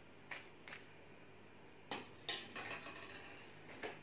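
Metal kitchen tongs clicking against a plastic plate as fried sausage rolls are set down, then a sharp knock about two seconds in and a short clatter with brief ringing as the tongs are laid against the metal wok and strainer.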